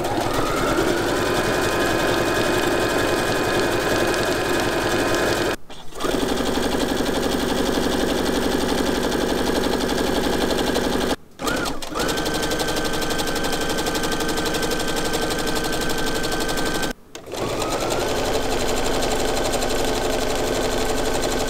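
Electric domestic sewing machines stitching through four layers of waterproof plastic fabric, in four runs of about five seconds one after another. Each run begins with a short rise in motor pitch, then holds a steady rapid stitching rhythm. The machines feed the plastic smoothly without the fabric needing to be pulled.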